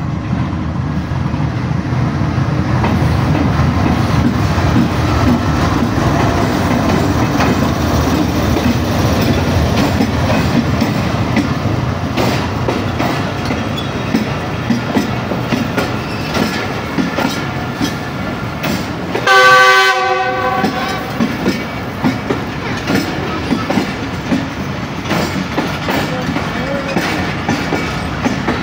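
Pakistan Railways GEU40 diesel-electric locomotive running past, then its passenger coaches passing close by with a steady clickety-clack of wheels over the rail joints. About two-thirds of the way through, a train horn sounds once for about a second, the loudest sound.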